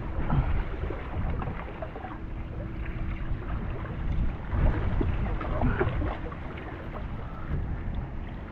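Wind buffeting the microphone while small waves slap and splash irregularly against the rocks of a breakwater. A faint steady hum runs under the first half.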